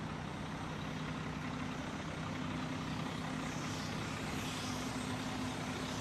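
A heavy engine running steadily: a low, even hum under a wash of noise.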